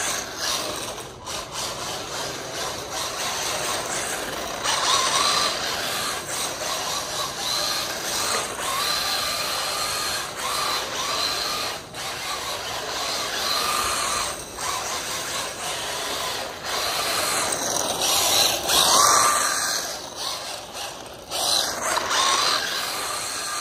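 Mini RC drift truck's electric motor and geartrain whining under full power as it is driven. The pitch shifts with the throttle, and the whine cuts out briefly several times when the throttle is released, with a rising-and-falling rev near the end.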